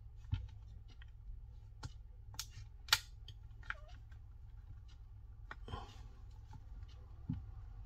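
Thin prying tool working around the edge of a Samsung Galaxy Tab S2's back cover, with a string of irregular clicks and snaps as the cover's clips come loose; the loudest snap is about three seconds in.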